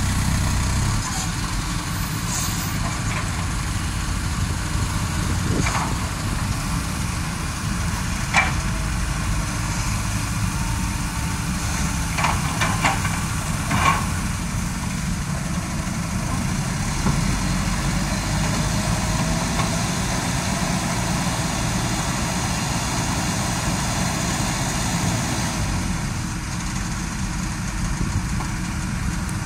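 Heavy diesel engines of a hydraulic excavator and a Mitsubishi Colt Diesel dump truck running steadily at a low rumble, with a few sharp knocks, single ones about a fifth and a third of the way in and a quick cluster near the middle, as the excavator loads the truck with earth.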